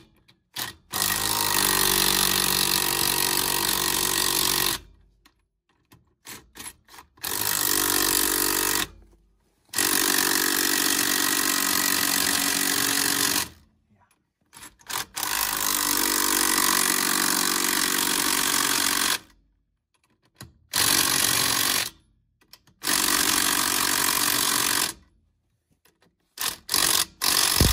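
Impact wrench running lug nuts onto a mobile home wheel in a series of bursts of one to four seconds, with short blips between. The nuts are being run on to pull the wheel onto the hub, not yet torqued to spec.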